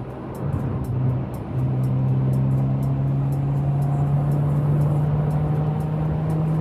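Honda Civic FB7's engine and aftermarket exhaust droning inside the cabin as the car accelerates at highway speed. The drone wavers and dips about a second and a half in, then holds steady and creeps slowly up in pitch.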